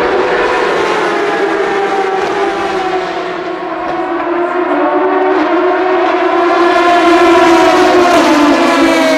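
Racing motorcycle engines running at high revs: a sustained high engine note that slowly rises and falls in pitch, growing louder about six seconds in as a machine approaches.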